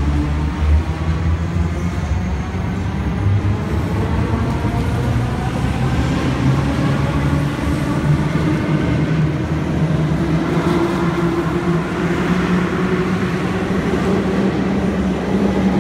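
An MS61 RER A electric multiple unit pulls out of the station and gathers speed past the platform. The train rumbles steadily, with several humming motor tones that climb slowly in pitch as it accelerates.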